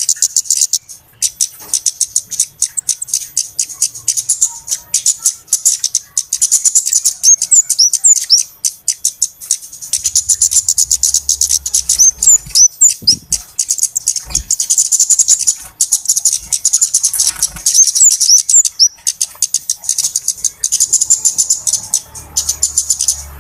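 Flowerpeckers (cabe-cabean) calling nonstop as a bird-trapping lure: a dense run of sharp, high-pitched ticks and short chirps, broken by a few brief pauses.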